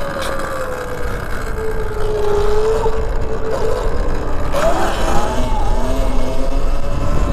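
Engine running under a wheelie attempt, its pitch dipping slowly and rising again, over a steady rumble of wind on the microphone.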